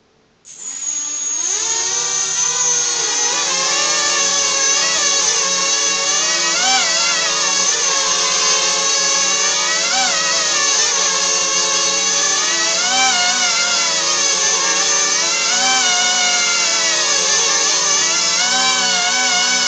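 A small electric multirotor's motors and propellers spin up about half a second in and then run steadily with a loud whine. Several motor pitches keep rising and falling against each other as the speeds are adjusted while it hangs on a tether.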